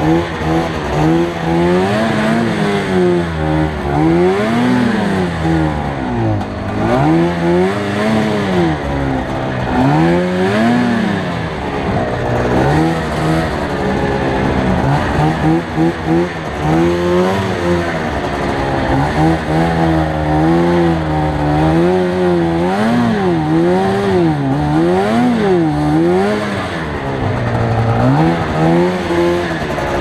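Arctic Cat snowmobile engine under way through deep powder, its pitch rising and falling over and over every second or two as the throttle is worked.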